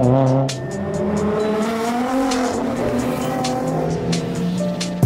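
Japanese sports car engines running as the cars drive slowly up the street; one steady engine note that rises and dips a little. Background music with a quick ticking beat runs underneath.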